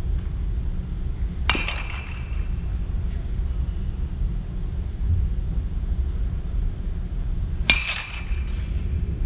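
A baseball struck twice by a metal bat, about six seconds apart, each hit a sharp ping with a short ring. A fainter knock follows the second hit. A steady low rumble runs underneath.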